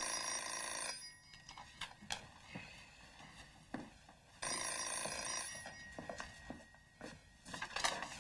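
Old desk telephone's bell ringing twice, each ring about a second long and about four seconds apart. Between the rings come footsteps, and near the end the receiver is picked up with a clatter.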